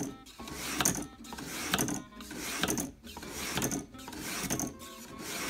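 Kitchen knife blade drawn down through a Warthog V-Sharp Classic II's spring-loaded 325-grit sharpening stones, set at 25 degrees. Steel scrapes on the stones in repeated strokes, about one a second, each with a sharp click. This is the coarse stage that raises a wire edge.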